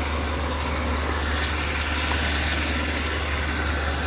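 Engine of a homemade Vietnamese rice combine harvester, about 120 horsepower, running steadily with a deep hum while it cuts rice. Faint short high chirps repeat about three times a second.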